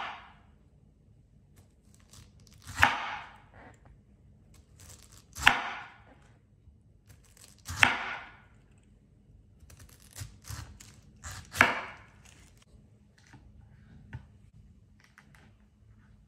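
Chef's knife cutting through a pineapple on a wooden cutting board: four main cuts about two and a half seconds apart, each sharp at the start and trailing off over about half a second, with a few lighter knife clicks in the second half.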